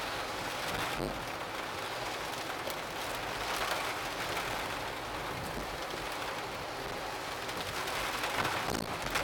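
Typhoon rain and wind: a steady rush of heavy rain that swells now and then.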